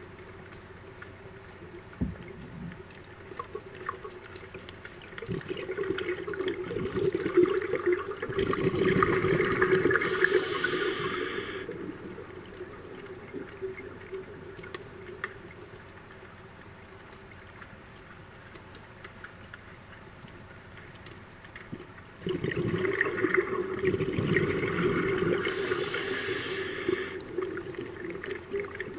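Scuba diver's regulator heard underwater: two long exhalations, each a gurgling rush of bubbles lasting several seconds, the first starting about five seconds in and the second about twenty-two seconds in, with quieter stretches between.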